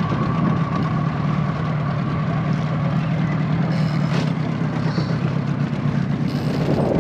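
Outboard motor of a small inflatable tender running steadily with a low hum.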